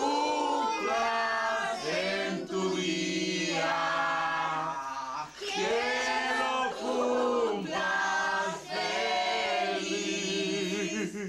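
A group of people singing a birthday song together, in drawn-out phrases with short breaks between the lines.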